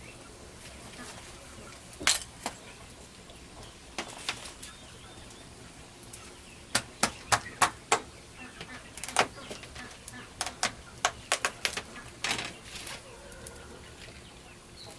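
A large kitchen knife chopping into the hard rind of pumpkins, giving sharp knocks: single strikes now and then, a quick run of about five about halfway through, and another cluster near the end.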